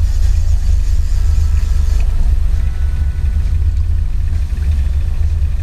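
Boat's outboard motor running at a steady idle, heard as a constant low rumble.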